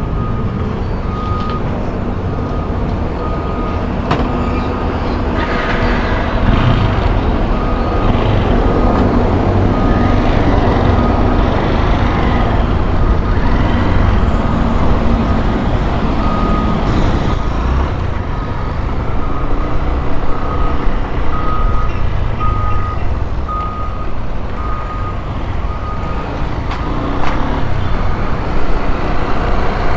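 Honda XRE 190 motorcycle's single-cylinder engine running, with traffic noise around it. A short, high beep repeats about once a second through most of it and stops a few seconds before the end.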